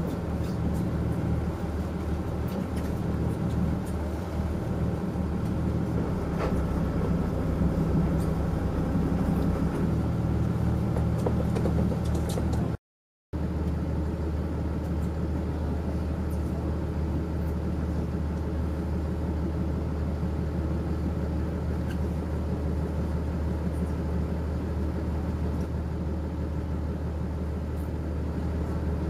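Boat engine running steadily at low speed, a constant low hum, with a brief dropout about halfway through.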